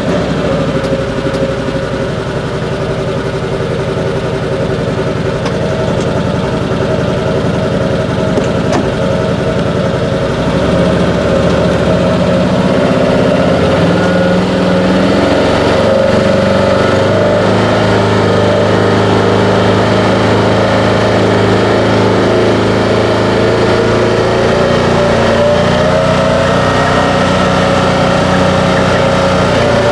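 Vehicle engine running just after being started, at first at an even idle; about ten seconds in its pitch rises as it gets under way, and it then runs at a steady speed.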